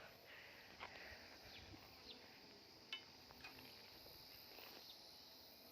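Near silence: a faint steady insect drone, likely crickets, with a few soft scattered clicks.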